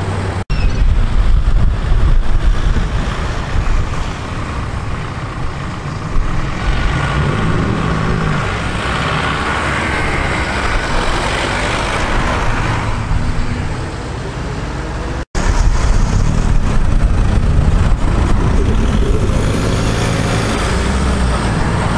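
Cars, several of them modified, driving slowly past close by, their engines and exhausts running over steady traffic noise. A passing car swells up and fades away around the middle. The sound drops out for an instant twice, about half a second in and about fifteen seconds in.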